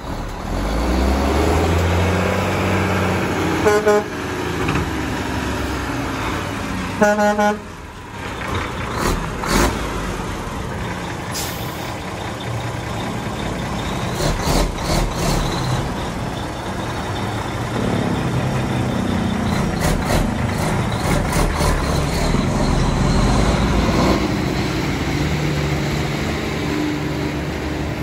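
Cummins N14 diesel engine of a sand-loaded truck pulling under load, its pitch climbing as it works up through the gears of a 13-speed box. A horn toots briefly twice a few seconds in, and there are short hisses of air near the middle.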